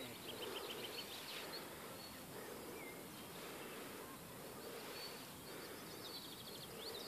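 Faint songbirds singing, short rapid trills and thin whistles, busiest about a second in and again near the end, over a steady background hiss.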